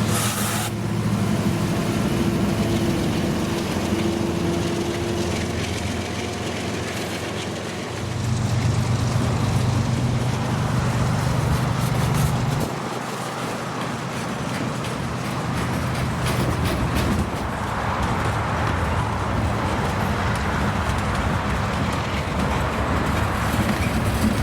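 Diesel freight locomotives running with a steady low engine drone over the noise of the moving train; the drone grows louder about eight seconds in and drops back about five seconds later.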